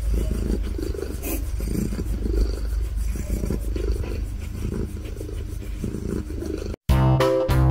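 Domestic cat purring loudly while being stroked, a low pulsing rumble. It cuts off suddenly near the end, and guitar music starts.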